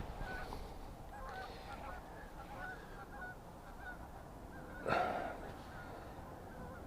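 Geese honking: many faint, short calls overlapping. A brief louder noise comes about five seconds in.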